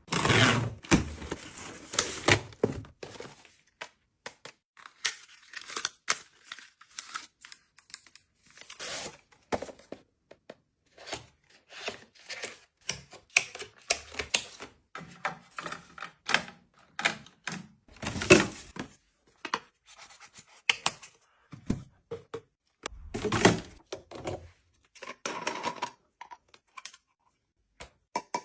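Household supplies being unpacked and arranged by hand: plastic packaging rustling, with a run of light clicks and knocks as items are set down and stacked, and a few louder rustling handfuls.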